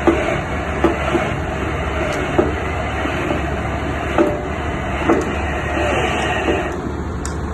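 Excavator running steadily at work, with about seven sharp, irregular metal knocks and clanks from the drilling or piling gear.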